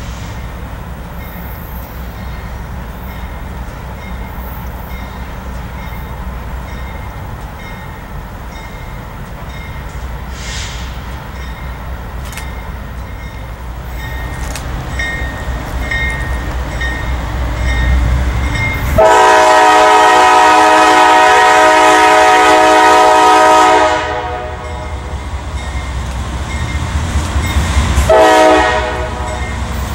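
CSX diesel freight locomotive rumbling as it approaches, growing louder, then sounding its air horn: one long blast of about five seconds about two-thirds of the way in, and a short blast near the end.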